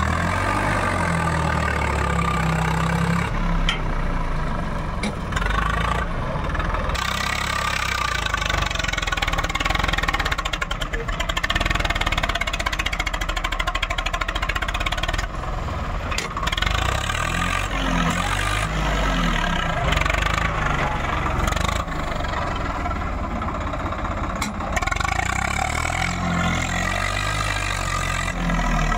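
Swaraj 744 FE tractor's three-cylinder diesel engine running under load while its front dozer blade pushes soil. The engine note rises and falls several times.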